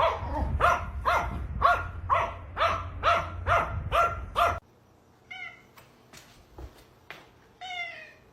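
A cat meowing over and over in short, falling calls, about two a second, which stop abruptly about halfway through. Two fainter, separate meows follow.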